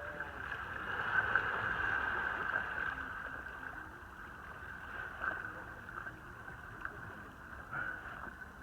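Water splashing and rushing as elk wade and swim across a creek, loudest in the first few seconds, with a few sharper splashes later.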